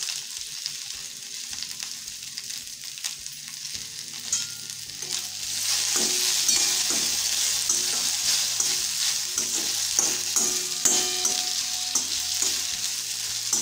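Cut okra sizzling in hot oil in a stainless steel kadai. A steel slotted spatula stirs it, scraping and clinking against the pan. The sizzle grows louder about five and a half seconds in.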